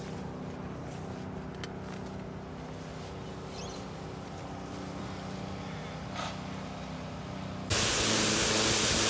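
High-pressure washer's motor running with a steady hum. Near the end a much louder rushing hiss suddenly starts.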